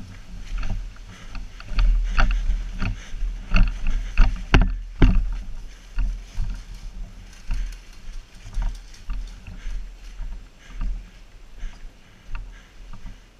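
Footsteps of a person running on grass and the rattle of carried gear, picked up close by a body-worn camera, over a low rumble on the microphone; two sharper knocks stand out about four and a half seconds in.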